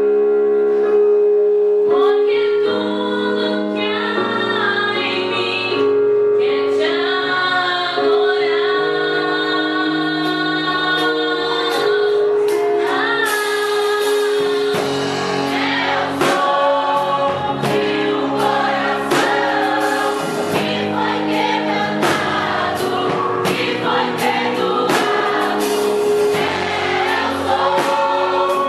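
A gospel worship group sings together in choir-like voices over held instrumental chords. About halfway through, a percussive beat comes in under the singing.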